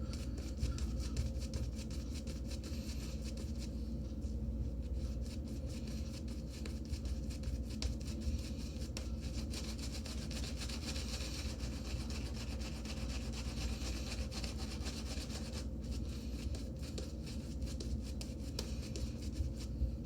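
Shaving brush swirling and rubbing wet shaving soap into lather, a steady scratchy rubbing made of many quick fine strokes. The lather is already over-watered, in the shaver's words.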